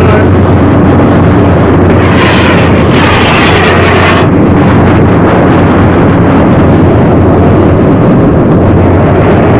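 Lifeboat at sea: a loud, steady engine drone under rushing wind and water noise, with a brighter hissing rush from about two to four seconds in.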